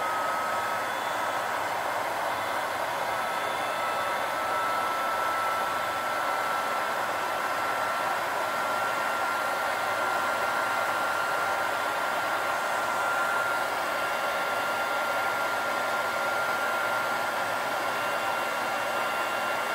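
Raychem heat gun running steadily while shrinking heat-shrink tubing over a wire splice: a steady blowing rush with a single high whine that creeps slightly higher in pitch.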